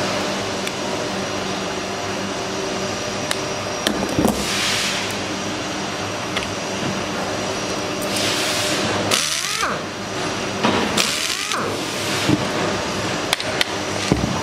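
Hand disassembly of a power tool's red plastic housing on a workbench: scattered clicks and knocks, and a few scraping rasps as parts are worked loose, over a steady machinery hum. Sharp knocks come near the end.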